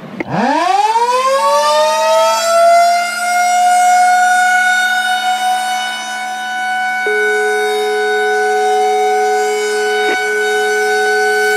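Flood and typhoon early-warning siren sounding the standard emergency warning signal. It winds up from a low pitch to a high tone over about two seconds, holds one steady wail, and cuts off suddenly near the end.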